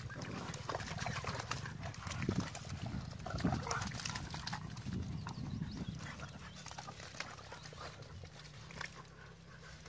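Small dogs moving about on a muddy bank: a few faint, short whines and the patter of paws on wet ground.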